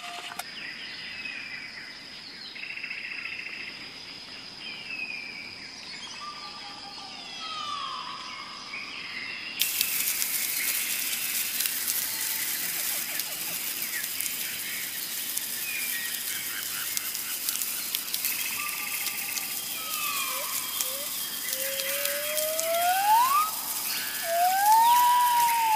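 Outdoor ambience of birds calling with short chirps and gliding whistles over a steady high thin tone. About ten seconds in, a loud hissing, crackling noise comes in. Near the end, louder whistled calls rise and fall.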